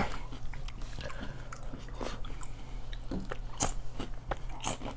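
Close-up chewing of crunchy Cheetos: irregular crisp crunches and mouth sounds, with a faint steady hum underneath.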